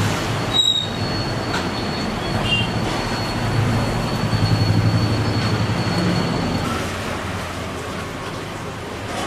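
Street traffic noise: a steady low rumble of vehicle engines with a thin high whine over it that stops about two-thirds of the way through.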